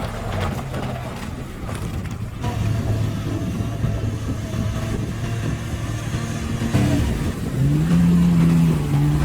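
Engine of an 8x8 amphibious all-terrain vehicle running under way. About seven seconds in it revs up, rising in pitch and then holding a higher, louder note.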